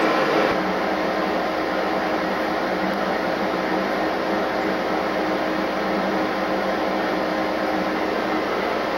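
Steady droning hum and rush of air inside the cab of an idling EMD SD60M diesel locomotive. The hiss drops slightly about half a second in.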